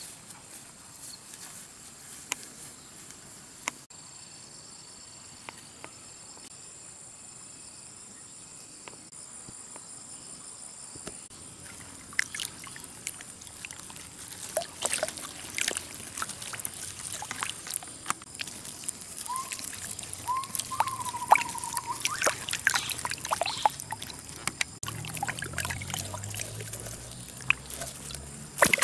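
Water trickling and splashing, with irregular splashes and clicks that grow busier in the second half.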